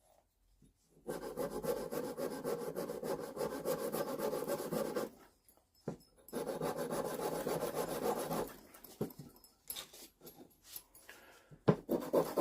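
Abrasive paper scrubbed rapidly back and forth on the steel head of an old tack hammer to clear off rust, in two spells of about four and two seconds, followed by a few light taps and clicks near the end.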